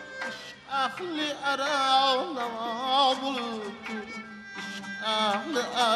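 Man singing a slow, richly ornamented melody with wavering held notes, accompanied by a plucked long-necked lute.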